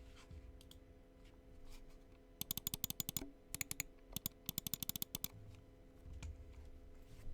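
Typing on a Tofu65 mechanical keyboard with lubed and filmed TTC Bluish White switches and PBT keycaps: a few scattered keypresses, then about two and a half seconds in three quick runs of keystrokes broken by short pauses, thinning to a few strokes near the end.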